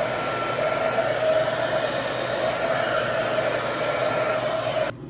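Handheld hair dryer running steadily while blow drying hair: a rushing airflow with a steady whine, which cuts off suddenly near the end.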